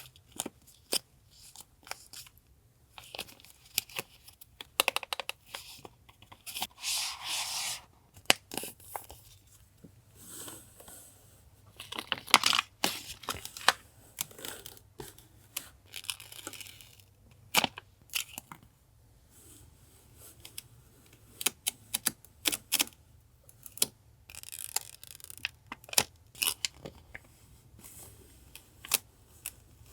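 Paper and plastic stationery being unpacked and handled: packaging and sticker sheets crinkling, rustling and tearing, with longer crinkling stretches about seven and twelve seconds in, between many light taps and clicks.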